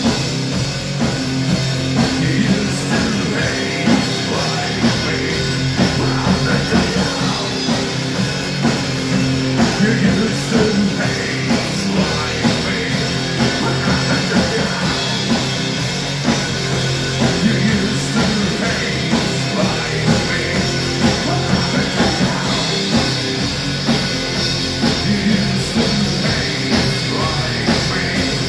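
Industrial metal band playing live: pounding drums from two drummers, distorted electric guitar and shouted vocals, loud and steady throughout.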